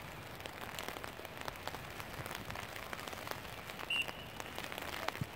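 Rain falling, heard as a steady hiss dotted with many small drop ticks. About four seconds in, a short, sharp referee's whistle blast signals the restart of play.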